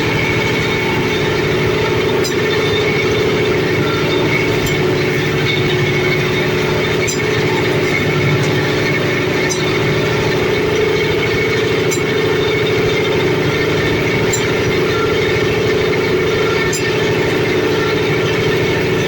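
Areca nut splitting machine running steadily with a constant mechanical hum, and faint sharp ticks about every two and a half seconds.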